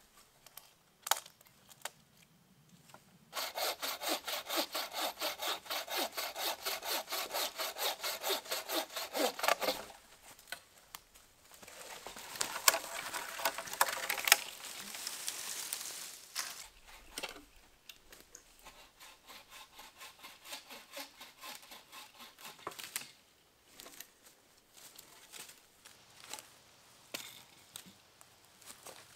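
Wooden-framed bucksaw cutting through a branch in steady back-and-forth strokes. There are three bouts: a loud one from about three seconds in to ten, a shorter one a little after, and a fainter one later, with small knocks of wood between.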